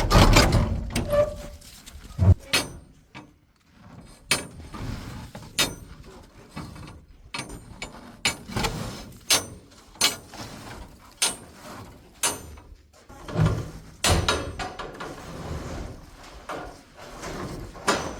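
Irregular knocks, clunks and rattles of things being handled, spread through the whole stretch, with a few louder thumps. No engine is running.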